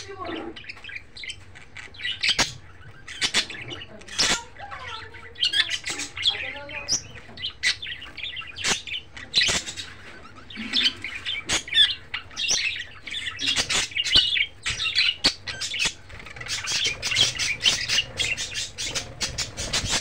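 Budgerigars chattering: a steady run of short, high chirps and warbles, packed into a quick string of chirps near the end.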